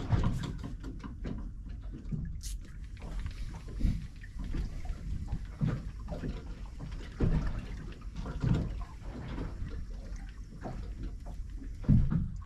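Sea water lapping and slapping against the hull of a small boat drifting offshore, a dull slap every second or two over a low steady rumble, with one brief sharp click about two and a half seconds in.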